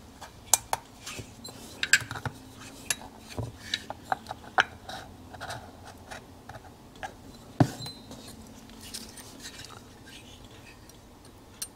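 Light metallic clicks and clinks as a piston ring is worked into a two-stroke motorcycle cylinder bore, pushed square with the piston and then gauged with a feeler gauge to check its end gap. There is one sharper knock a little past halfway.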